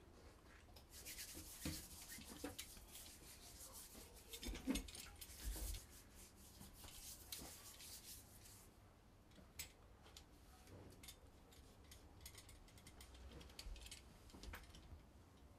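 Faint scratchy rustling of paper positive sheets being slid, pressed and rubbed together by hand on a table for most of the first nine seconds, then only scattered small clicks.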